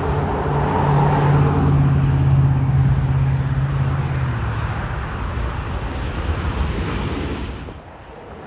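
Jet airliner's engines running as it passes: a steady low drone over a broad rushing noise. The drone fades out about four seconds in, and the rush carries on until it drops away near the end.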